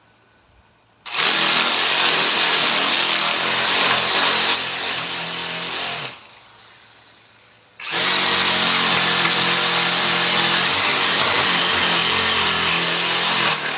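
Handheld electric power tool running on wood in two spells of about five seconds each, stopping for under two seconds about six seconds in.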